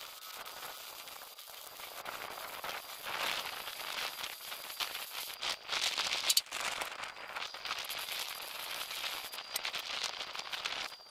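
Arc welding on a steel truck chassis: the arc crackles and sizzles steadily as a bead is laid along a reinforcing plate over a chassis crack, with one sharp pop a little past halfway.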